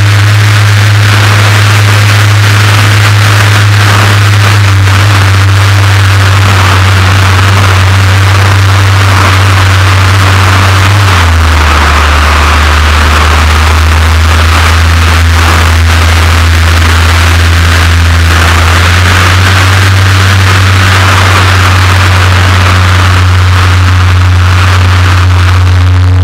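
Electric motor and propeller of a 2.2 m Yak 54 RC aerobatic model under power, heard from a camera mounted on the model: a loud steady drone under rushing air noise. The drone drops in pitch about 11 seconds in and rises again near 19 seconds, as the throttle changes.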